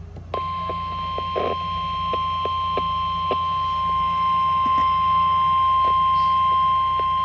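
NOAA Weather Radio warning alarm tone: one steady high tone of about 1050 Hz, starting just after the start and held without a break, signalling that a warning broadcast follows. Under it are a low hum and scattered clicks of radio static.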